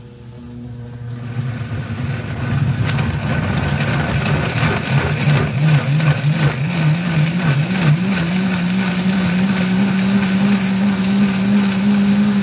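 High-powered countertop blender pureeing soaked dried red chiles with liquid. The motor starts up and its pitch climbs and wavers over the first several seconds while the chiles break apart, then holds at a steady, higher pitch once the mix has turned to a smooth sauce.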